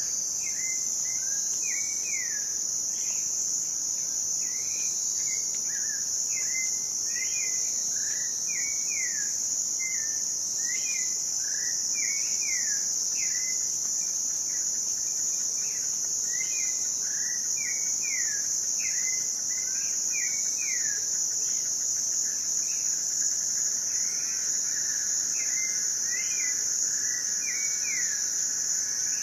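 A steady, high-pitched chorus of crickets, with birds calling over it in short, falling notes again and again. In the last part, longer held bird notes join in.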